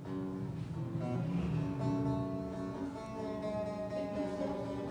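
Acoustic guitar and bağlama (long-necked Turkish lute) playing together: a live instrumental passage of plucked, held notes.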